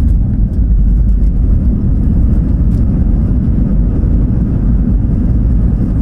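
Steady, loud low rumble inside the cabin of an Airbus A320: engine and airflow noise.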